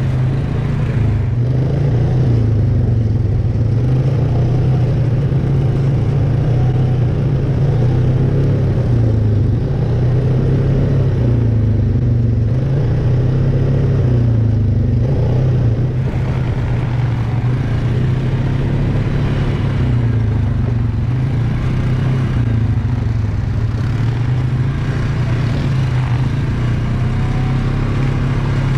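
ATV engine running under way, its pitch rising and falling as the throttle is worked, with some rattling over it.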